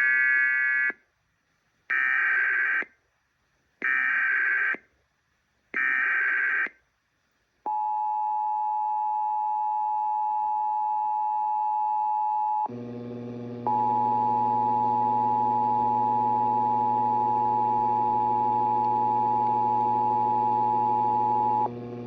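Emergency Alert System signal: four short bursts of digital SAME header data tones, each about a second long and about two seconds apart, then the steady two-tone EAS attention signal. The attention tone drops out for about a second around 13 seconds in, then resumes over a low hum.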